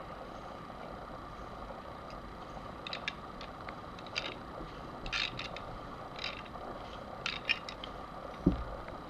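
A tubing cutter spun by hand around a steel 12-gauge shotgun barrel, its cutting wheel scoring the metal: light, irregular scrapes and clicks that come more often from about three seconds in. There is one low thump near the end.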